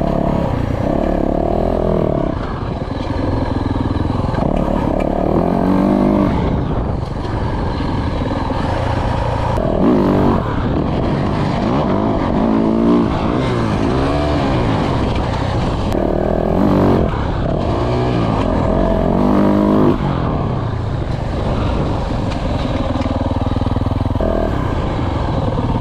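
Motocross dirt bike engine being ridden hard, revving up and dropping back again and again as the throttle is worked.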